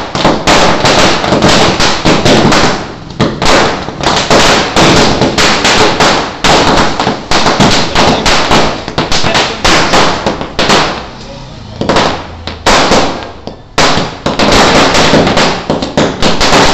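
Firecrackers bursting on the ground in a rapid, almost continuous crackle of loud bangs, with a short lull about eleven seconds in.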